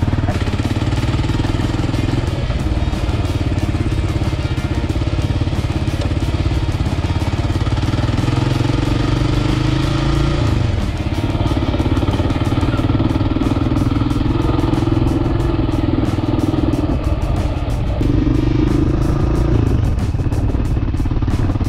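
Kawasaki KLR650 single-cylinder engine running as the bike is ridden two-up along a dirt track, its note rising and falling a few times with the throttle.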